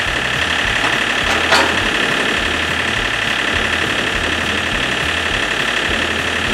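John Deere 4400 tractor's three-cylinder Yanmar diesel engine idling steadily. A single sharp knock sounds about one and a half seconds in.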